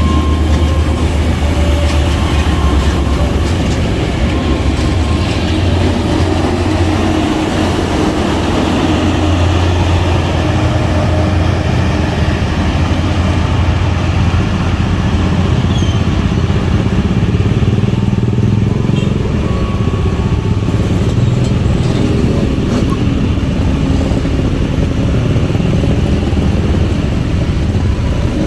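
Vehicle engines running steadily, with a deep low rumble that is strongest for the first few seconds and then eases into a broad, steady noise.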